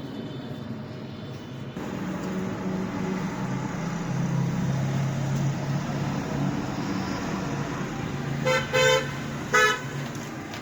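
A steady low drone of motor-vehicle traffic, with a vehicle horn tooting three short times near the end.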